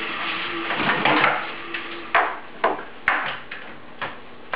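A run of about five sharp knocks, roughly half a second apart, from gloved hands striking a laptop, after a couple of seconds of faint noise.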